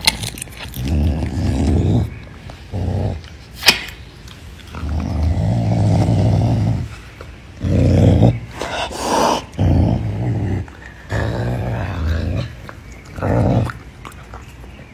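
Caracal growling over its raw chicken-wing meal: a series of low, rumbling growls, each lasting from half a second to about two seconds, with short pauses between them. A single sharp click comes a little under four seconds in.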